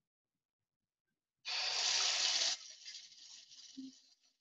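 Bathroom sink mixer tap turned on: silence, then about a second and a half in the water comes on with a loud gush into the washbasin for about a second, settling to a quieter steady stream.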